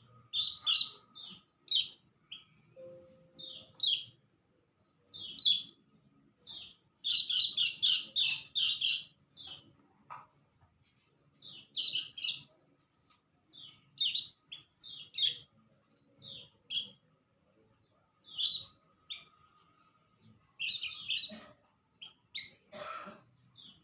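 A bird chirping in short, high notes, with quick runs of chirps about seven seconds in and again around twelve and twenty-one seconds.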